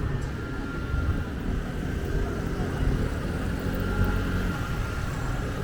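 City street ambience: a steady low rumble, like traffic or crowd hum, with nothing standing out.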